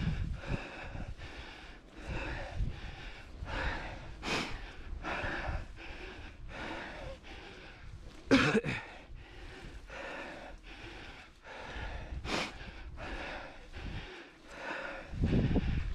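Cyclist breathing hard and rhythmically while pedalling, a breath under every second. About every four seconds comes a sharper, louder breath.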